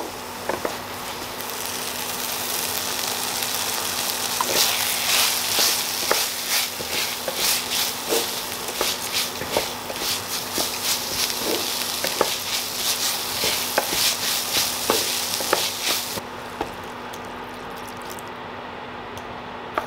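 Kimchi, onion and rice sizzling in a frying pan, stirred with a wooden spatula that scrapes and clicks against the pan. The sizzle is loudest in the middle and cuts off abruptly about three-quarters of the way through, leaving a quieter, steadier background.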